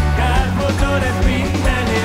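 Live worship band playing a rock-style song, with a lead singer singing Hungarian lyrics over the band.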